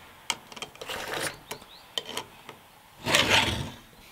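Round file rasping across a cutter tooth of a .325 Stihl saw chain in forward push strokes, sharpening the chain by hand: a short stroke about a second in and a longer, louder one about three seconds in, with a few light clicks between.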